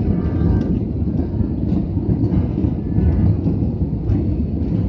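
Jet airliner cabin noise at a window seat: a steady low rumble of the engines and rushing air in flight.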